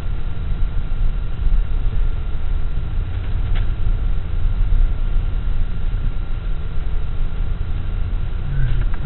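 Pickup truck driving over a grassy field, heard from inside the cab: a steady low rumble of engine and tyres, with one small click about three and a half seconds in.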